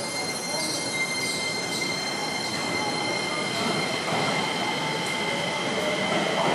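Keisei 3000-series electric train standing at an underground platform, its equipment giving a steady high whine over a busy station bed. A few short, falling high chirps sound in the first two seconds.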